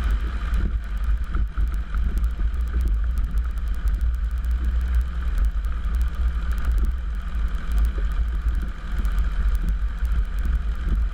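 Cozy Mk4's pusher piston engine and propeller running steadily while the aircraft rolls on the ground, heard from inside the cockpit as a constant low drone. Frequent faint, sharp clicks sound over it.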